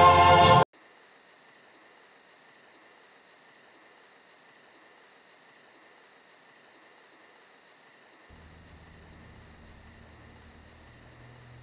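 Orchestral music with a choir cuts off suddenly less than a second in. Then comes faint night ambience: a steady, high, thin chorus of insects, with a low hum coming in about eight seconds in.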